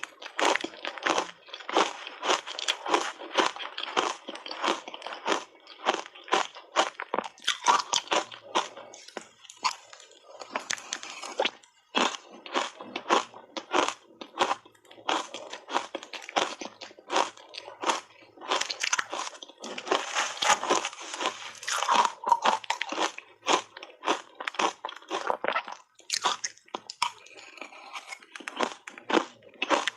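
A person biting and chewing dry, crunchy shaved ice dusted with matcha powder: dense, rapid crunching, with brief lulls about twelve and twenty-six seconds in.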